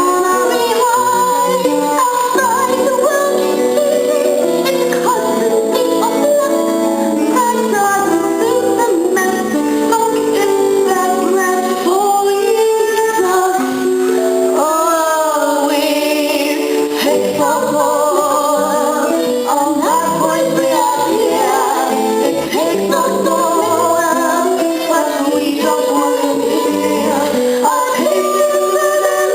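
Youth theatre cast singing a stage-musical number over instrumental accompaniment, the singing carrying on without a break.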